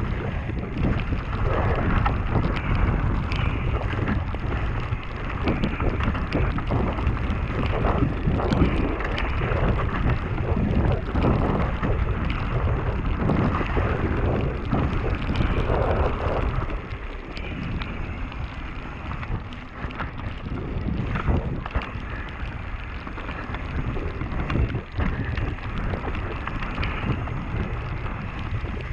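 Mountain bike descending a rain-soaked, muddy gravel trail: tyres hissing and splashing through mud and running water, the bike rattling and knocking over bumps, with wind noise on the microphone. A little quieter from about two-thirds of the way through.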